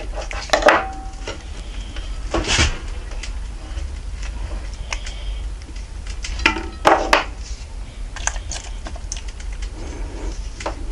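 A handful of separate clinks and knocks of a steel knife against a cast-iron pan and cookware as half a red chili pod is cut and handled, some with a short metallic ring, over a low steady hum.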